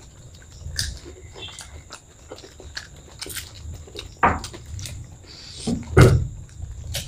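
Puchka (pani puri) being eaten: crisp hollow shells crackling and crunching between the teeth, with wet chewing. Two louder crunches come about four and six seconds in.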